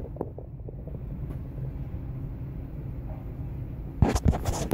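Steady low rumble, then near the end a few loud rustling scrapes as cat fur and a hand brush against the phone's microphone.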